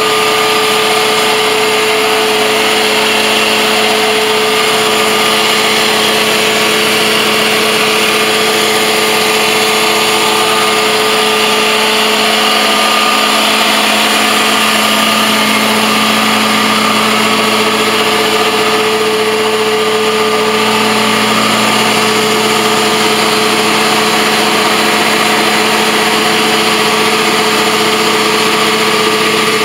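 Honda iGX700 EFI twin-cylinder engine of a truck-mount carpet cleaning machine running at a steady speed, a loud, even hum with a held tone in it.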